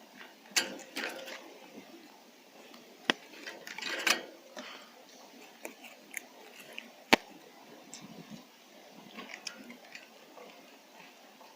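Intermittent close handling sounds: scattered rustles, clicks and light knocks, with two sharp ticks about three and seven seconds in.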